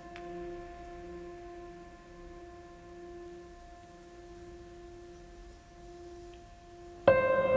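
Background music: soft sustained tones hold and slowly fade, then a louder chord comes in suddenly near the end.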